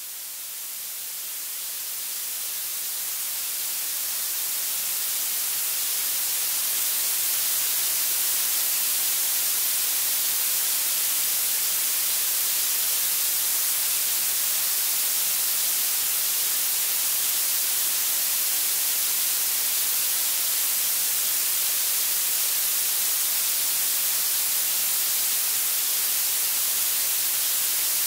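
Synthetic blue noise: a steady hiss weighted toward the high end, brightest at the top and thin in the lows. It fades in over the first several seconds, then holds at a constant level.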